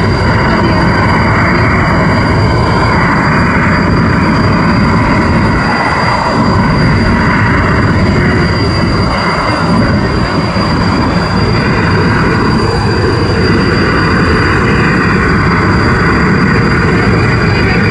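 Helicopter running: a loud, steady rumble with a thin, steady high whine above it.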